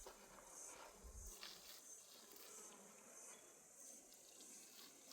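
Near silence, with faint high-pitched insects chirring and swelling in and out every second or so.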